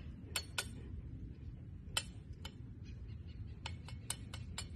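Sharp, irregular clicks or ticks, more than a dozen, some in quick pairs and bunched near the end, over a steady low rumble.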